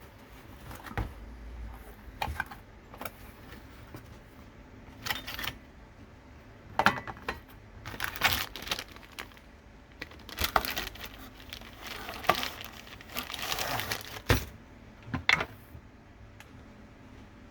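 Irregular metal clinks, rattles and rustles as an angle-grinder chainsaw attachment's bar and chain are handled. The attachment is not running, and there is no motor sound.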